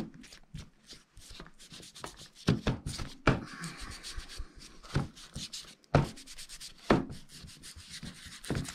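Foam ink blending tool rubbing and dabbing distress ink onto the edges of a wooden block, a soft scratchy scrubbing broken by several light taps and knocks as the block is handled.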